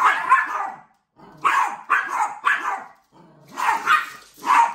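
Yorkshire terrier barking repeatedly: sharp barks in three quick groups with short gaps between them.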